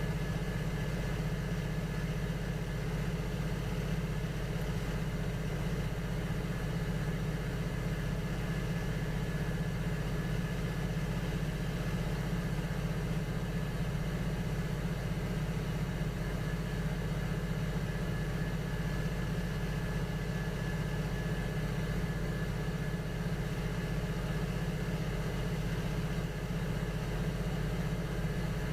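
Electric potter's wheel motor running with a steady, even hum.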